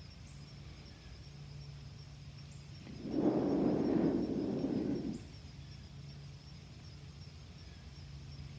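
A slow, deep exhale lasting about two seconds, starting about three seconds in, over a faint steady low hum.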